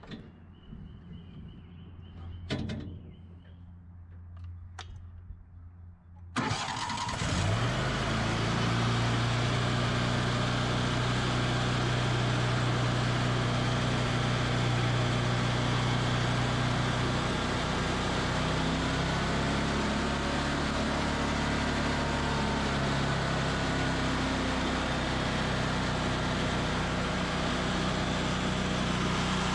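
Vermeer BC600XL wood chipper running steadily at full speed. The loud engine comes in abruptly about six seconds in. Before that there are only faint outdoor sounds and a few light knocks.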